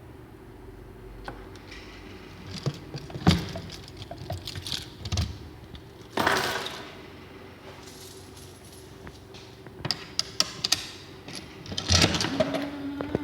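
Irregular metallic clinks, knocks and rattles, with a short loud rush of noise about six seconds in and a steady hum starting near the end.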